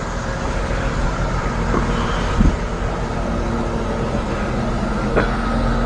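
Engine of a piece of earthmoving equipment running steadily, with a few sharp metallic knocks about two, two and a half and five seconds in.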